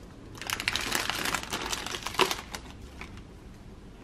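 Plastic food wrappers and bags crinkling and rustling as hands rummage through a box of packaged snacks: a run of quick, light crackles that thins out after about three seconds.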